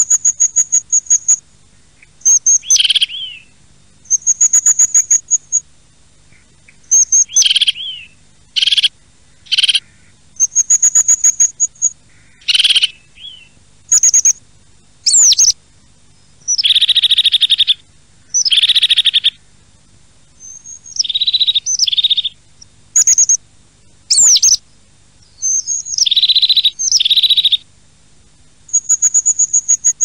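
Small songbirds calling and singing: a run of separate phrases about a second long, some high, fast trills and others lower chirping notes, with short pauses between them.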